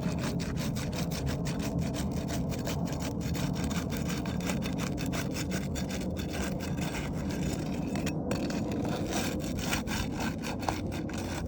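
Steel roofing flat bar prying and sliding under asphalt shingles to break the sealant strips: a steady rasping scrape full of fine crackles as the bonded shingles tear apart, with a brief pause about eight seconds in. The crackling is the sealant pulling away along with shingle material, which the roofer calls material transfer.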